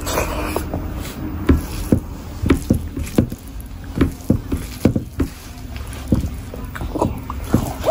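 Wet, open-mouthed chewing and lip smacking of a big mouthful of rice and curry, in irregular sharp smacks a few times a second, mixed with the squelch of fingers working rice and curry on a plate.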